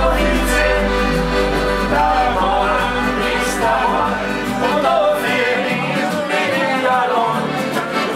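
Small Alpine folk band playing live: men singing together to accordion, acoustic guitar and upright double bass. A deep steady bass tone underneath fades away about six seconds in.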